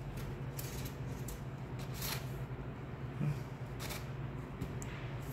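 Faint handling noises of resin statue parts in a styrofoam packing tray: a few short scrapes and light taps scattered through, over a steady low hum.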